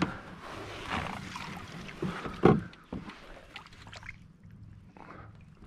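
Water splashing and sloshing against a kayak's hull as a northern pike is held in the river beside it, with one sharp thump about two and a half seconds in.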